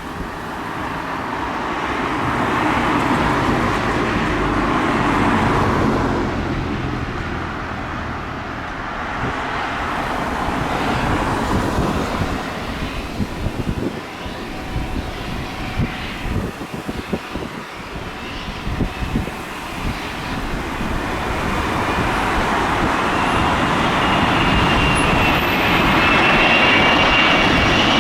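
Jet engine noise from an Emirates Airbus A380 on its landing, swelling and fading, with a high engine whine building near the end.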